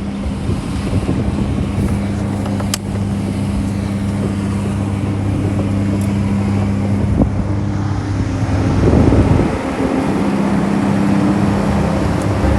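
Steady engine hum heard from inside a vehicle cabin, with even low tones over a wash of noise. The noise swells and grows rougher for a couple of seconds about two-thirds of the way through.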